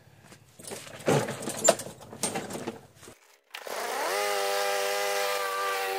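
A lawn mower starting up after a few seconds of clattering handling: the motor catches about three and a half seconds in, rises quickly in pitch and settles into a steady, even running tone.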